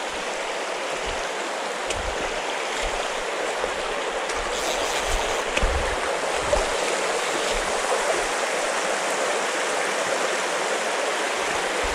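Shallow, stony river rushing steadily over a riffle of rocks and gravel: a constant even wash of water.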